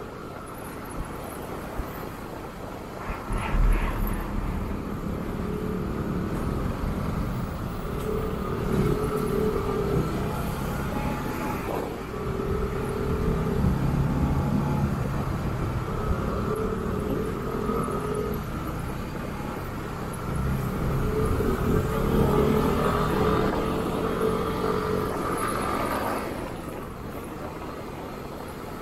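Motorcycle engine running on the road over a steady rushing noise, its pitch climbing and dropping several times as it speeds up and eases off. There is a low thump about three seconds in.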